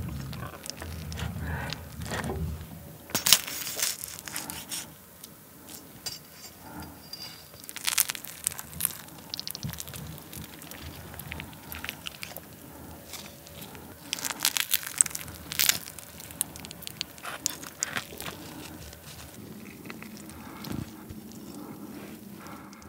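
A long knife scraping melted raclette cheese off a half wheel onto food, over and over: crackly, wet scrapes that come in irregular bursts a second or two long.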